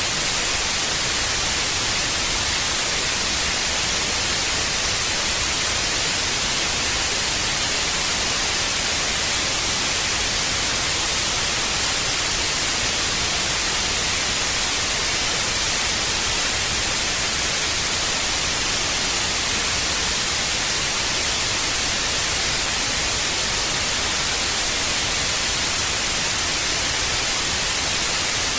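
Analogue television static: a steady hiss of white noise, brightest in the high frequencies, unchanging throughout.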